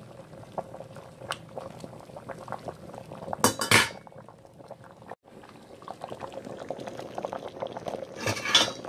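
A pot with a whole chicken in it boiling, with steady fine bubbling. Twice, about three and a half seconds in and near the end, there is a short, louder clatter of a utensil working against the pot.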